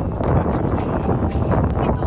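Wind buffeting a phone microphone: a loud, gusty rush of noise, heaviest at the low end.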